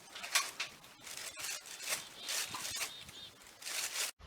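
Hushed whispering and rustling in short, breathy bursts, cut off suddenly near the end.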